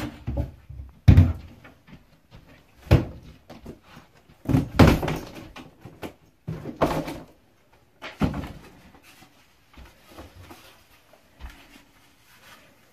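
A string of knocks and thuds a second or two apart, from a bedroom door and things being moved about in a small room, fading to small bumps near the end.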